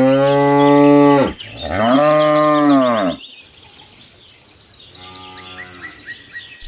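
A cow mooing: two long, loud moos one right after the other, then a quieter third moo.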